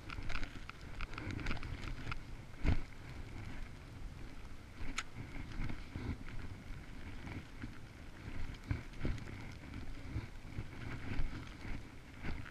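Wind rumbling on the microphone, with scattered knocks and bumps from the camera moving in the snow.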